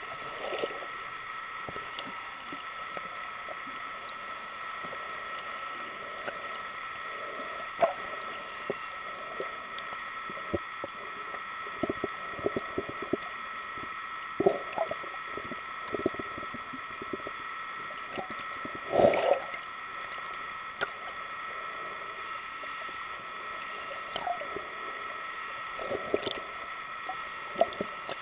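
Underwater sound: a steady high-pitched hum with scattered clicks and short gurgling bursts, the loudest burst about two-thirds of the way through.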